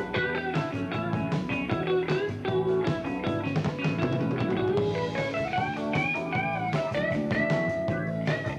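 Rock band playing, with a Stratocaster-style electric guitar taking the lead over bass and drums. The lead notes bend up and down, and one high note is held near the end.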